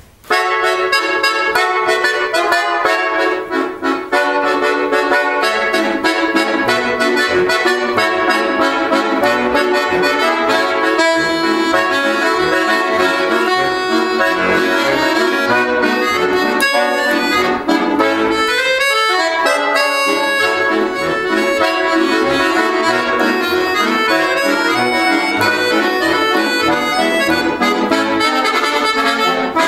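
Accordion duet playing a fast, lively instrumental tune with full chords over a steady, even beat, with a brief break about four seconds in.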